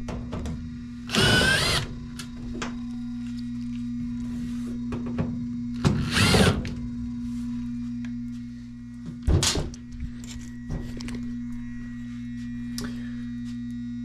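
A cordless impact driver with a 5/16-inch bit backs out sheet-metal screws from the furnace panel in short bursts: about a second in, again around six seconds, and a briefer one past the two-thirds mark, with a few clicks between. Under it the furnace blower motor hums steadily without turning. The motor is stalled, the sign of a failed blower motor capacitor.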